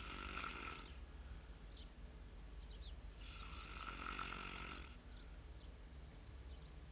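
A man snoring in his sleep: two long snores, one at the start and another about three seconds in.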